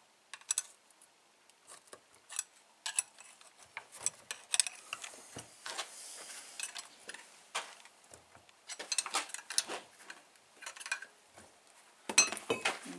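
Irregular metal clinks, taps and scraping of hand tools against a motorcycle engine crankcase as its two halves are gently prised apart, with a stretch of scraping a little after the middle and a quick run of clinks near the end.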